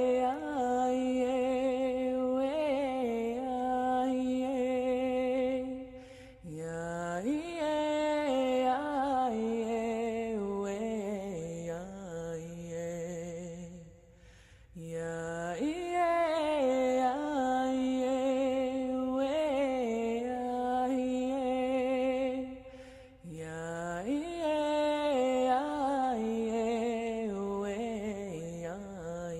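Slow, meditative chant-like music in four long phrases, each opening with a rising swoop and then holding on steady sustained notes.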